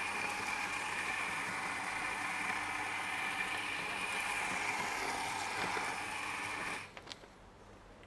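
Mazzer Kony conical-burr espresso grinder running on a timed dose, its motor and burrs giving a steady whine as beans are ground into the dosing cup; it cuts off abruptly about seven seconds in when the timed grind ends.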